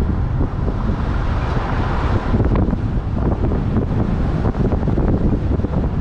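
Wind buffeting the microphone of a camera on a moving vehicle, over a steady low rumble of engine and road noise.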